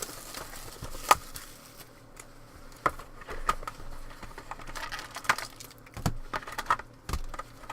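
Hands handling trading-card packaging, with a rustle of wrapper and cardboard and about half a dozen sharp taps and clicks.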